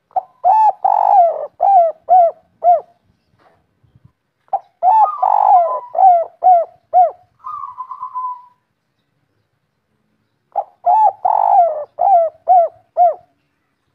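Spotted dove cooing its 'kuk 3' song: three phrases, each of soft rounded coos with a longer note in the middle and ending in three short 'kuk' notes. A short buzzy rasp comes between the second and third phrases.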